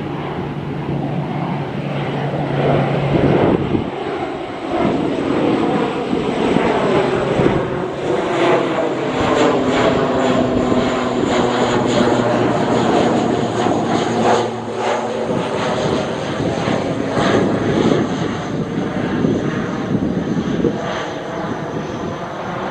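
ATR 72 twin-turboprop airliner flying low overhead, its propeller and engine drone swelling as it passes directly above and fading as it moves away. The low hum drops in pitch a few seconds in.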